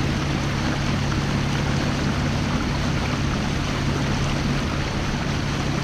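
Small boat under way on a Torqeedo 1003 electric outboard: a steady low hum over the constant rush and splash of water along the hull.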